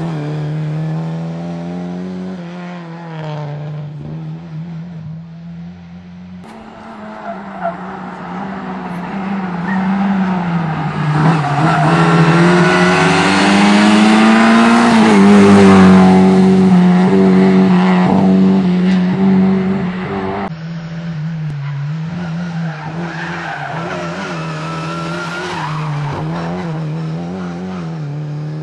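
Rally car engine heard from inside the cabin, revving hard with its pitch climbing and dropping through gear changes and lifts. It is loudest in a long middle stretch, where tyre squeal and road noise join the engine.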